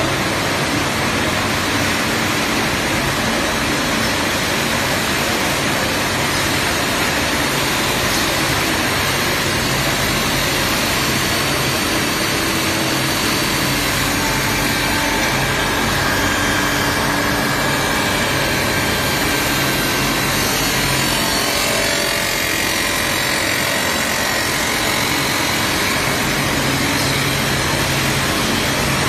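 Steel tube forming mill running, forming steel strip into pipe: a loud, steady machine noise with a low hum, and a faint higher whine partway through.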